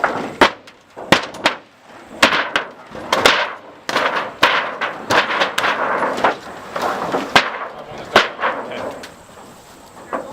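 Demolition of a small observatory: an irregular run of sharp bangs and cracks, about ten, as a panel is wrenched and torn off the structure, thinning out near the end.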